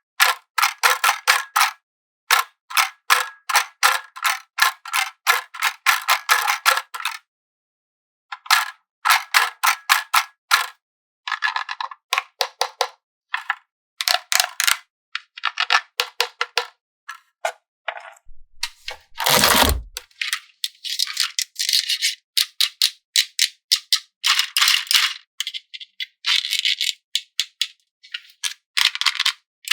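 Plastic toy parts clicking and rattling in quick runs of sharp clicks that stop and start, like a small ratcheting mechanism being worked. There is one heavy thump about two-thirds of the way through, followed by denser scraping and rustling.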